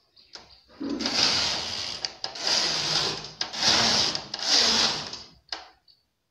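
Knitting machine carriage pushed back and forth across the needle bed, knitting rows: four sliding passes of about a second each, then a short one near the end.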